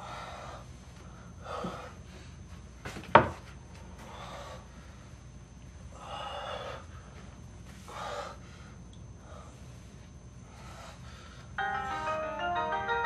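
A man breathing hard in distress, with loud gasping breaths and sighs every second or two and one sharp knock about three seconds in. Near the end a marimba-like mallet melody starts.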